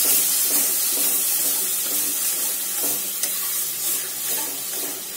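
Mango pulp sizzling as it is poured into hot ghee-roasted semolina in an aluminium kadhai, with a spatula stirring and scraping through the mixture. The sizzle is a steady hiss that slowly fades.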